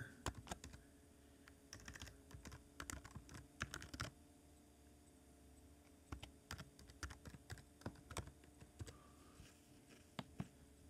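Computer keyboard typing: faint runs of quick keystrokes, with a pause of about a second and a half in the middle.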